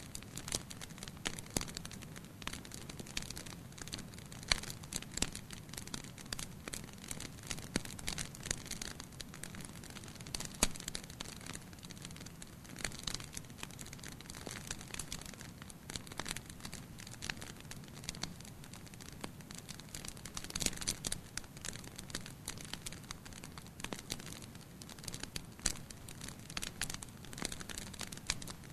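Fire in a fireplace crackling, with frequent irregular sharp pops over a low steady rumble of burning.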